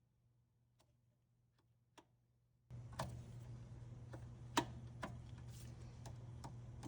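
A Whirlpool/Maytag top-load washer's shift actuator starts humming nearly three seconds in and clicks roughly twice a second, unevenly, as it tries and fails to move the splutch (drive clutch). The clicking is the sign of a stuck splutch that the shifter cannot shift between wash and spin.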